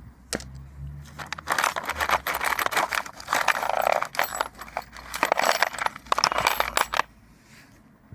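Small metal hand tools clinking and rattling against each other as they are handled and sorted, a dense run of sharp clicks that stops suddenly near the end.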